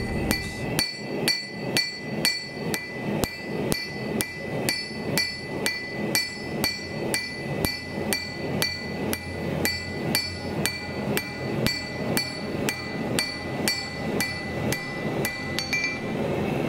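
A hand hammer striking hot steel on an anvil in a steady rhythm of about two blows a second, hand-forging a knife blade, with the anvil ringing between strikes.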